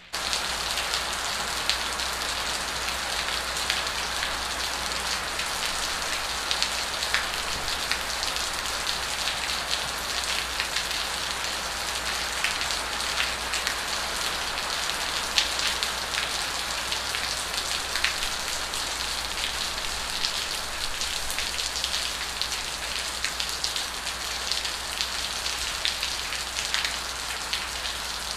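Steady rain on a surface: an even hiss scattered with small ticks of drops, over a low steady hum.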